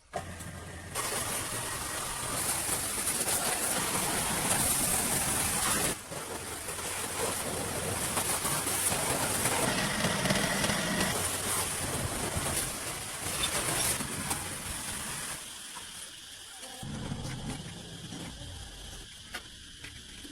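Arc welding on steel: a steady, loud hiss that breaks off briefly about six seconds in and dies away about fifteen seconds in, over a weaker low machine hum.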